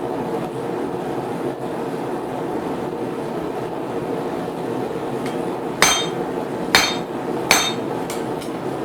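Three hammer blows on a hand chisel, marking the split line in a hot iron bar, each with a short metallic ring, a little under a second apart, over a steady background hum.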